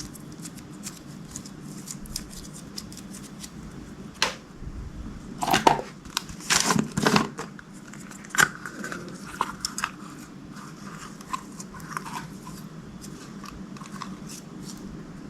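Slime-play handling sounds: a string of small clicks and crackles, with a few louder, noisier crinkles about four to seven seconds in.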